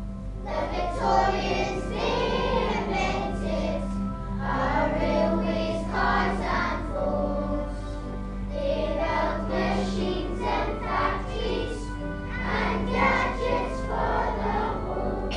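A group of children singing together, with a held instrumental accompaniment underneath.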